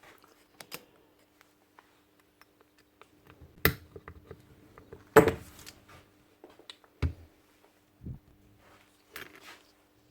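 Metal parts and hand tools being picked up and set down on a workbench: scattered clinks and knocks, the loudest about five seconds in, over a faint steady hum.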